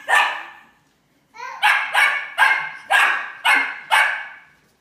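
Small puppy barking: one bark, then after a short pause a quick run of about six sharp yips, roughly two a second.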